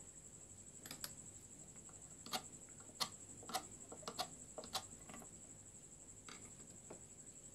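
Light, sharp metallic ticks and taps as a car alternator's stator is handled and a thin metal tool touches it: about ten scattered clicks, most of them between one and five seconds in.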